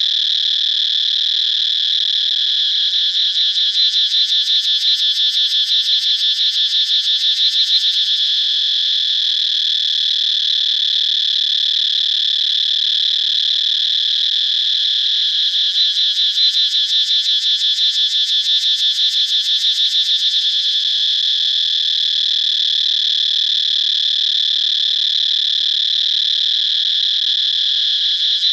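A continuous high-pitched animal chorus: a dense, fast trill that swells louder twice, a few seconds in and again past the middle.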